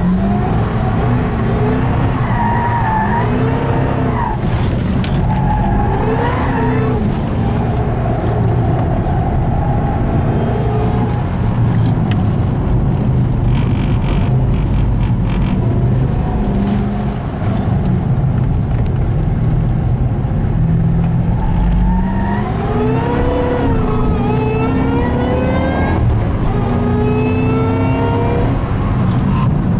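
Ford Shelby GT500's V8 engine, heard from inside the cabin, revving up and down while the car is driven hard on a track. Near the end it climbs in pitch several times and drops back, accelerating up through the gears.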